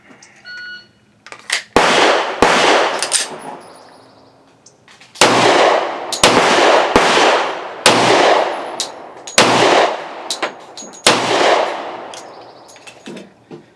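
Sig P320 XTen 10mm pistol firing 180-grain Sellier & Bellot rounds: about nine shots in three short strings, each shot ringing out with an echoing tail. The pistol cycles every round without a malfunction.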